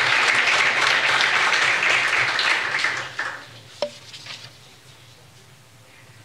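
Audience applauding, fading out about three seconds in, followed by one sharp click.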